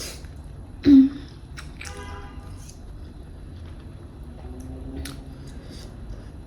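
Someone eating noodles: chewing and squishy mouth sounds, with a short loud low vocal sound about a second in, a brief squeak near two seconds and a few small clicks.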